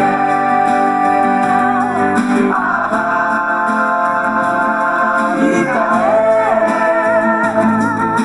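Devotional music: acoustic guitar accompaniment with a singing voice holding long, wavering notes.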